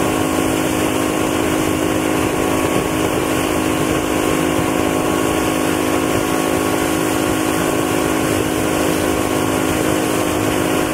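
Tow boat's engine running steadily at towing speed, over the rush of the churning wake.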